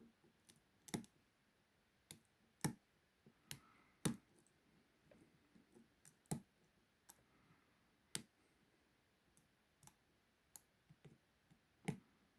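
Sharp, irregular clicks of metal lock-picking tools working the pins inside a Burg 554/40 40 mm padlock, about fifteen over the stretch with gaps of up to a second and a half.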